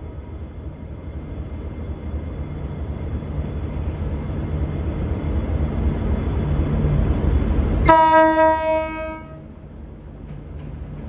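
V/Line VLocity diesel multiple unit departing, its engines running with a low rumble that grows louder. About eight seconds in the driver sounds one low-note horn blast lasting about a second and a half as a friendly salute, and then the rumble drops away.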